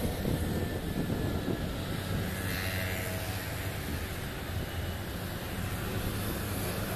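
Road traffic: cars and motor scooters passing, a steady wash of engine and tyre noise with a low hum.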